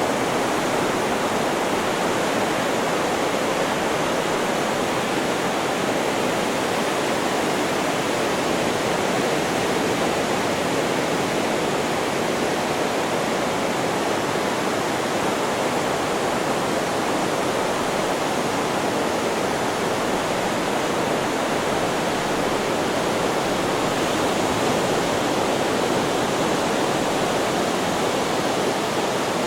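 Steady white-noise hiss, even and unchanging, with no rise and fall of breaking waves.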